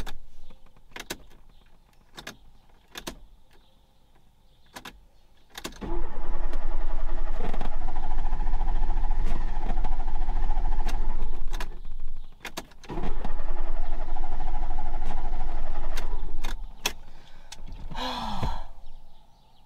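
Fiat Panda 4x4's starter cranking the flooded engine in two long attempts, about six seconds and then about three and a half, with the engine turning over but never firing. A few sharp clicks come before the first attempt.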